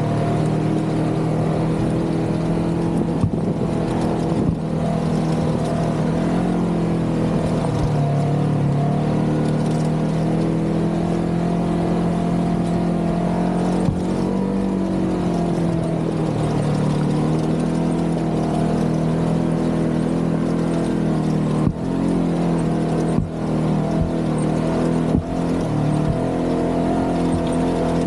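Polaris RZR Trail S 1000 side-by-side's twin-cylinder engine running at a steady trail-cruising pace, its pitch rising and falling a little with the throttle. A few short knocks and dips in the sound come near the end.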